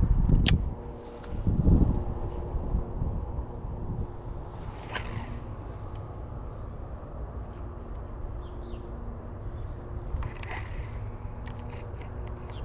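Steady high-pitched insect chorus of crickets or similar insects, with a low rumble in the first two seconds and a few faint clicks and swishes.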